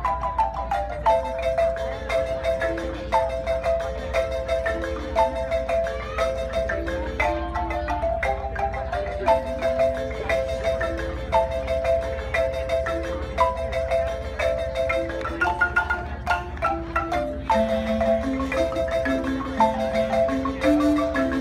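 A marimba ensemble playing a fast, repeating pattern of struck high notes over a moving bass line.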